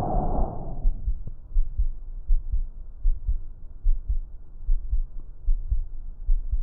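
Normal lung sounds heard through a stethoscope: a breath sound fades out about a second in, then low heartbeat thumps continue over a faint background until the next breath.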